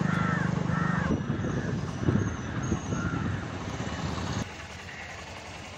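Road traffic at close range: a motor vehicle's engine hum, steady at first and then rougher and uneven, dropping away about four and a half seconds in. A few short chirps sound over it.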